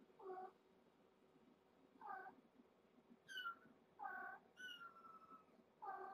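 Kitten mewing repeatedly: about six short, high-pitched mews, with one longer, drawn-out mew just past the middle.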